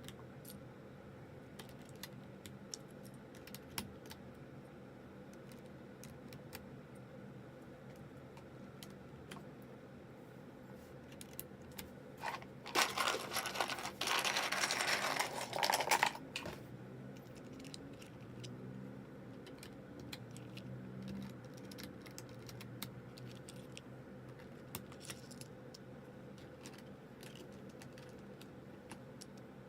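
Plastic keycaps clicking and tapping as they are handled and fitted onto a keyboard, scattered clicks with a few seconds of dense, louder rattling about twelve seconds in.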